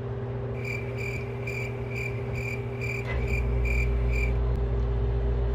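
Cricket chirping in short, evenly spaced chirps, about two a second, stopping about four seconds in, over a steady low hum; a deeper low rumble joins about three seconds in.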